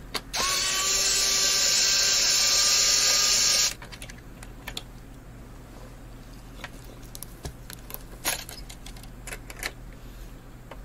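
Electric screwdriver spinning up with a quick rising whine, then running steadily for about three and a half seconds as it backs out a tower CPU cooler's mounting screws. After that come light clicks and rattles of metal parts being handled.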